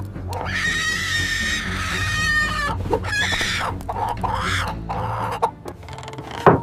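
Cartoon chicken clucking and squawking over background music: one long held call, then several shorter ones, with a sharp hit near the end.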